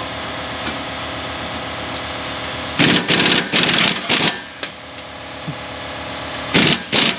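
Pneumatic impact wrench hammering on a bolt under the truck in short bursts: a run of bursts about three seconds in, then more near the end, over a steady hum.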